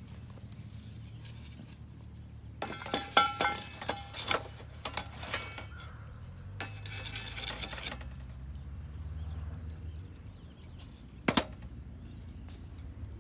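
Metal cookware and utensils clattering and clinking, with a little ringing, in two spells. A single sharp knock follows near the end.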